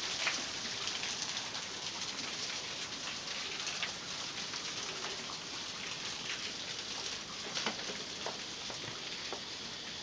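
A small waterfall trickling and dripping onto rock: a steady splashing hiss with many separate drops pattering through it.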